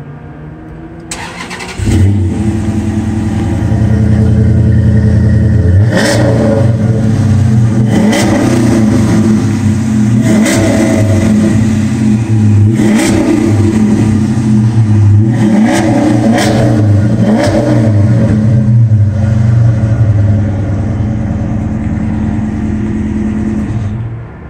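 A 2014 Dodge Charger R/T's 5.7-litre HEMI V8 through Flowmaster 40 Series mid mufflers with the rear mufflers deleted, idling and then revved in about eight quick blips, each rising and dropping back to idle. Some blips come in close succession.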